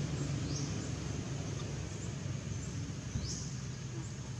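Steady outdoor background noise with a low hum, broken twice by a short, high, rising chirp: once about half a second in, again after about three seconds.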